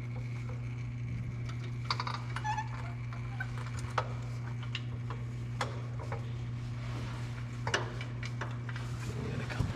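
Scattered metal clinks and knocks, a few seconds apart, from tools and the heavy transfer case as it is worked loose and lowered out of a tractor, over a steady low hum.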